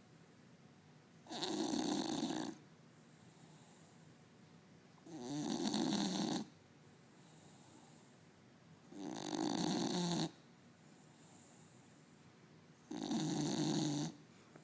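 English bulldog snoring: four loud snores, each a little over a second long, in a slow, even rhythm about four seconds apart.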